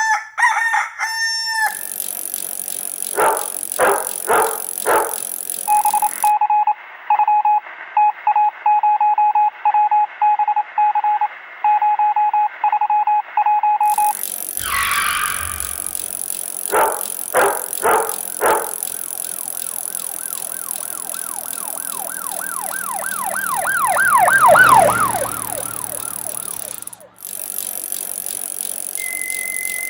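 Electronic sound effects: quick chirps, short sharp bursts, a run of rapid beeping tone pulses, then a swoosh. A warbling siren-like tone swells and fades, and near the end a steady tone steps down in pitch.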